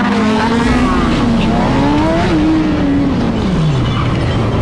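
Several motorcycle engines accelerating together, their pitches climbing and falling as the riders work through the gears. A little over two seconds in, the strongest engine note peaks, then drops steadily away.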